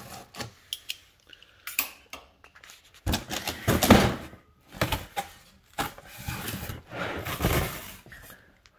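Cardboard box being opened and handled: flaps and packaging rustling and scraping against the electrical panel cover inside. A few sharp clicks and knocks come first, then longer stretches of scraping and rustling.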